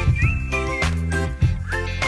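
Background music: a light tune with a steady beat, held bass notes and a high melody line with short upward slides.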